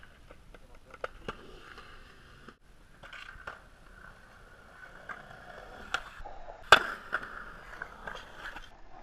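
Skateboard wheels rolling on concrete, a steady noise, broken by several sharp clacks of the board against the concrete. The loudest clack comes about three-quarters of the way through.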